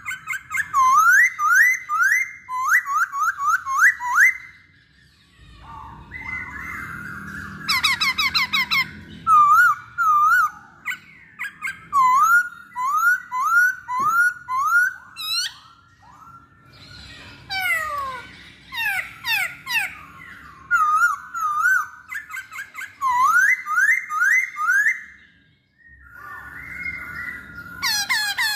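Black-throated laughingthrush singing a long, varied song of loud rising whistles, delivered in quick runs of repeated notes with brief pauses between phrases.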